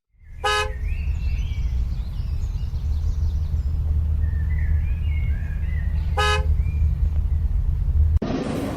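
Vehicle horn giving two short toots about six seconds apart, over a steady low rumble of engine and road noise. The rumble cuts off suddenly near the end.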